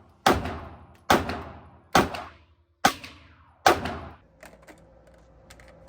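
Five gunshots from a 9mm pistol fired at a steady pace, a little under a second apart, each with a short echoing tail, followed by a few faint clicks.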